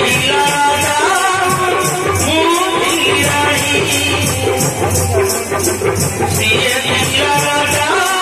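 Loud dance music with a fast, even rattling beat like a tambourine or shaker, under a wavering melody line.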